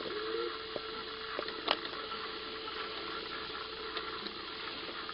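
Steady hiss with a faint steady hum tone and a few sharp clicks, the loudest about two seconds in.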